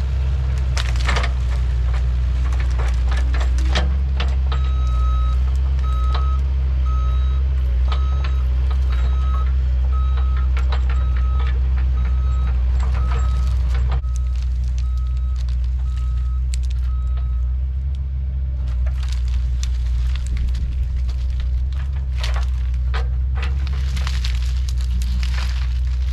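Mini excavator's diesel engine running steadily under load, with its travel alarm beeping about one and a half times a second for the first half or so, then stopping. Intermittent clanks and scrapes as the machine shoves the felled juniper tree, more of them near the end.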